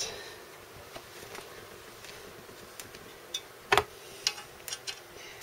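Scattered small metallic clicks and taps as a hex key is fitted into and turned on socket-head screws in an aluminium gantry side plate, with one sharper knock a little before the end.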